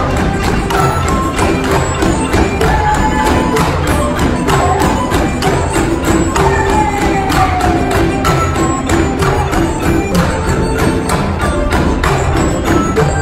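Bamboo orchestra playing folk-dance music live. Quick, steady struck percussion runs under repeated pitched notes, with a higher melody that slides from note to note.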